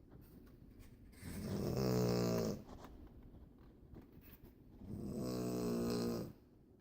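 A person snoring: two long snores, each about a second and a half, a few seconds apart, over faint steady background noise.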